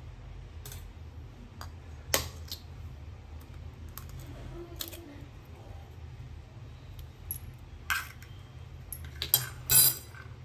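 An egg cracked against a stainless-steel bowl, giving a few sharp clicks and clinks on the steel scattered through. One strong tap comes about two seconds in, and the loudest pair comes near the end.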